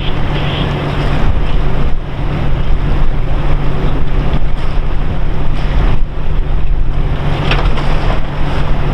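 Wind buffeting the microphone, a steady rushing noise over a constant low hum.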